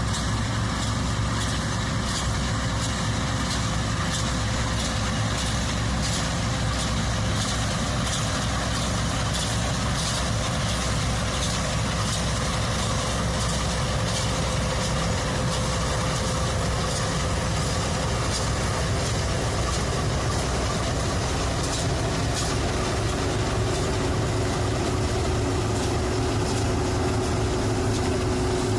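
Massey Ferguson diesel farm machinery running steadily under constant engine load, a low continuous engine drone with a steady whine over it.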